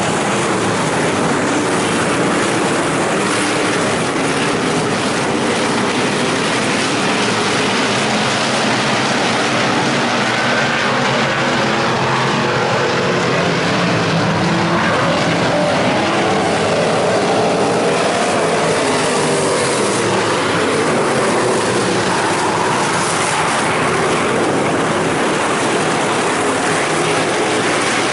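Several IMCA Stock Cars' V8 engines running on a dirt oval: a loud, steady engine drone from the field of cars, with engine pitch rising and falling as cars pass.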